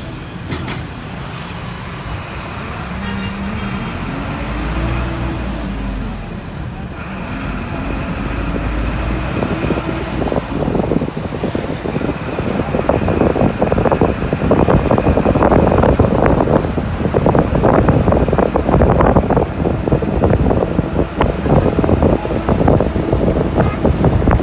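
Engine and road noise of a moving vehicle heard from inside it, the engine pitch rising as it picks up speed a few seconds in. From about halfway on, a louder rough rushing noise builds as the vehicle travels faster.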